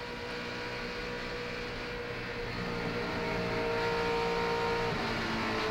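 In-car sound of a NASCAR Cup stock car's V8 engine running at a steady pitch, heard from the onboard camera microphone. The pitch drops slightly about five seconds in.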